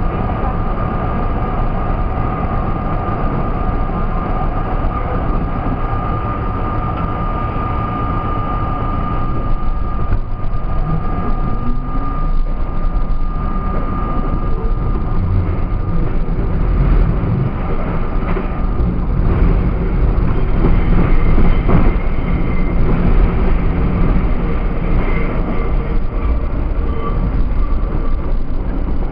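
R32 subway train pulling away and accelerating through the tunnel, heard from the front of the lead car. The motor whine rises in pitch about ten seconds in, and the rumble of wheels on track grows louder through the second half.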